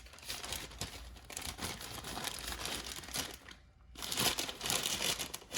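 Rustling and small clicks of hand-held tools and their packaging being picked up and handled, with a short pause a little past three and a half seconds.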